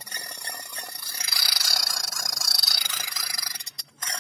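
Plastic toy gun being handled, a loud rattling, ratchety clatter that breaks off for a moment near the end.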